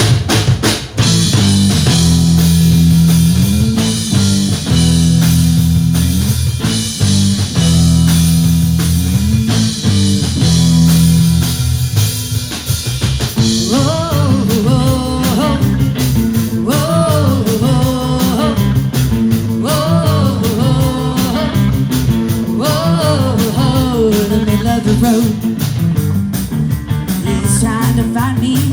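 Live rock band playing an instrumental intro: drum kit and a driving low electric guitar and bass riff, with a higher lead line with bending notes coming in about halfway through.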